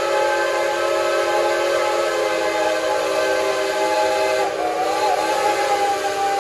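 Whistles of several geared steam locomotives (Shays and a Climax) blowing together in a long, steady chord. About four and a half seconds in, one whistle wavers and then slowly sinks in pitch.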